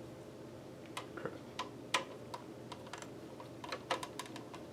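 Light, irregular clicks and ticks of a screwdriver turning a small screw into a Synology DS119j NAS's case, about fifteen in a few seconds.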